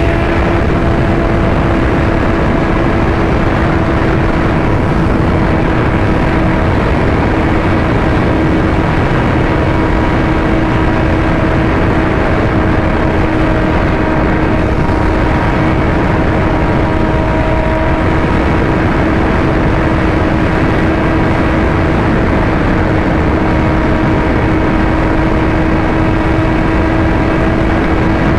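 Heavy wind rush on the microphone over a sport motorcycle's engine droning at a steady pitch while cruising at highway speed.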